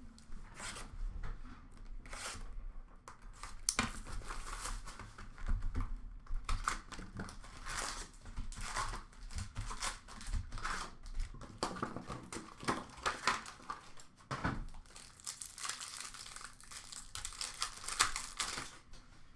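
Hockey card packs being torn open and their foil wrappers crinkled, in irregular crackling rustles.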